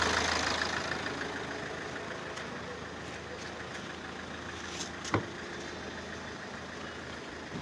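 Hyundai Accent CRDi common-rail diesel engine idling steadily. It grows fainter over the first two seconds. A single sharp click comes about five seconds in.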